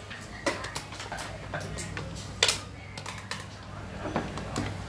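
Xiangqi pieces clacking down on a wooden board and chess-clock buttons being pressed: a handful of sharp clicks and knocks, the loudest about two and a half seconds in, over a faint steady hum.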